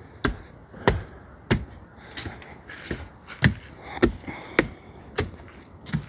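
Footsteps climbing deck-board stair steps at a steady pace, about ten footfalls, one every half second or so.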